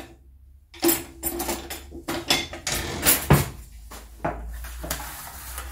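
Metal cutlery and wooden utensils clinking and knocking in a kitchen drawer as it is rummaged through, a quick run of clicks and knocks lasting about three seconds.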